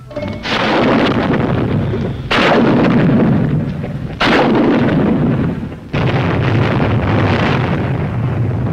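Four heavy explosions about two seconds apart, each followed by a long rumble: demolition charges blowing up trenches and tunnels.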